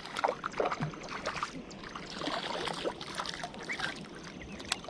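Irregular light splashing and small clicks at the water's surface, typical of a bass just hooked on a surface lure being played in.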